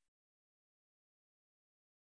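Total silence: the sound track drops out completely, with not even room tone.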